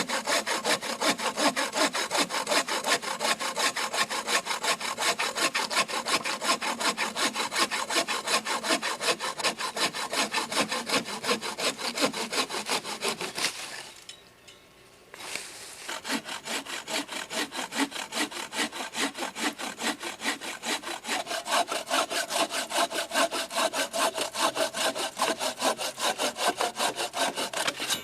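Hand saw cutting through wood with rapid, even back-and-forth strokes. It stops for a second or so about halfway through, then starts sawing again.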